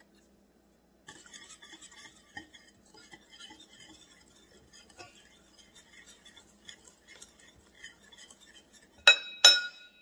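Wire whisk stirring egg and flour batter in a ceramic bowl: a stream of light metal-on-ceramic clinks and scrapes. Near the end come two loud, sharp, ringing clinks about half a second apart as the whisk knocks against the bowl.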